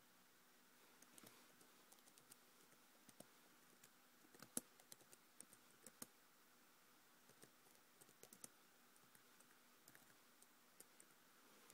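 Faint, irregular clicking of laptop keys being typed on, with one sharper click about four and a half seconds in.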